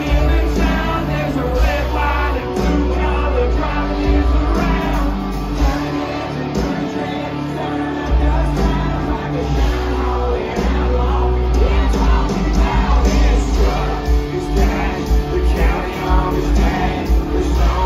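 Live country-rock band with a singer, played loud through a venue PA and heard from inside the crowd, which yells along. The bass and kick drum drop out for a few seconds, then come back in about eight seconds in.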